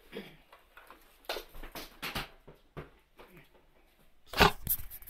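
Handling noises: a few short knocks and rustles, then a louder close rub and bump near the end as the recording phone is taken hold of.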